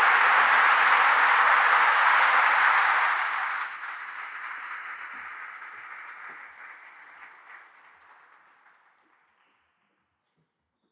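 Audience applauding: full applause for about three and a half seconds, then thinning and fading out.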